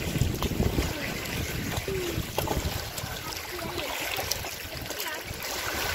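Shallow sea water lapping and trickling over pebbles at the shoreline where a small dog stands wading, with scattered small ticks through it.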